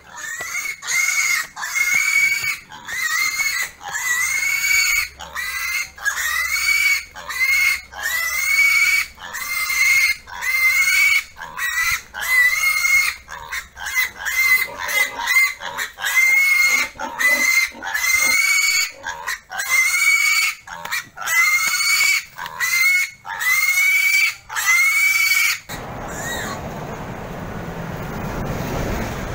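A piglet squealing over and over as it is caught and carried, about one high, arching squeal a second. The squealing stops abruptly near the end, leaving a steady rushing noise.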